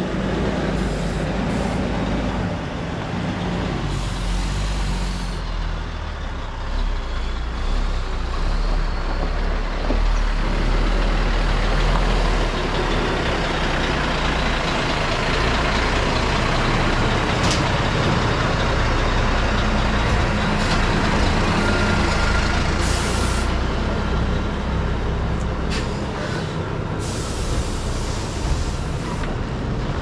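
Semi truck's diesel engine running steadily while hauling a grain trailer, with a few short hisses during the second half.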